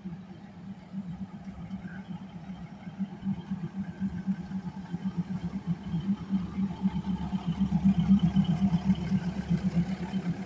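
Diesel engine of a stationary passenger train idling, a steady pulsing low throb that grows louder, with a deeper rumble joining about halfway through.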